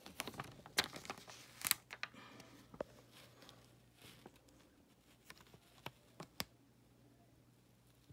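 Clear plastic carrier sheet of heat-transfer vinyl crinkling and rustling as it is shifted by hand on fabric, with light clicks and taps. Most of it comes in the first two seconds, then a few scattered clicks.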